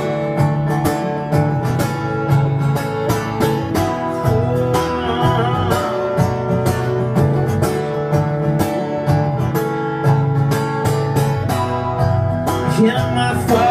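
Acoustic guitar strummed in a steady rhythm: an instrumental break between sung verses of a folk song played live.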